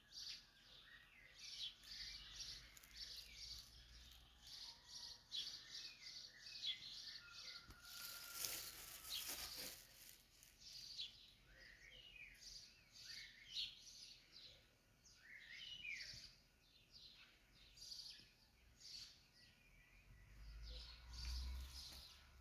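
Small birds chirping repeatedly in short, quick calls, faint, with a brief rushing noise lasting about two seconds around eight seconds in.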